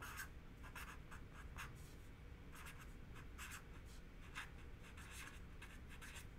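Felt-tip marker writing on paper: a run of faint, short, scratchy strokes.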